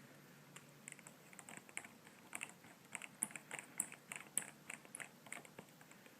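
Quick, irregular light clicks and taps of small tools and parts being handled while a replacement iPhone 3G/3GS speaker and dock-port assembly is fitted into the phone's housing.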